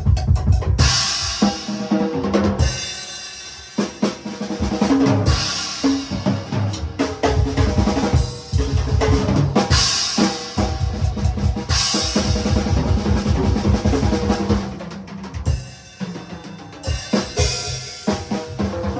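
Drum kit solo: fast rolls of rapid snare and drum strokes over bass drum beats, with cymbal crashes every few seconds.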